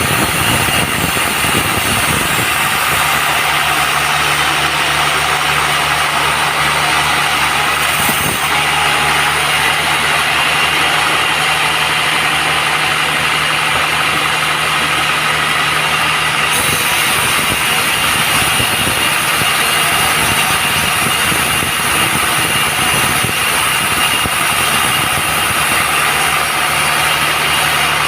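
Band sawmill running steadily: an even machine drone with a constant low hum and a hiss over it.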